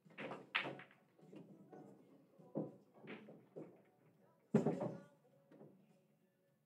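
Pool-hall background: scattered muffled voices and a few short knocks, the loudest a sharp thump about four and a half seconds in.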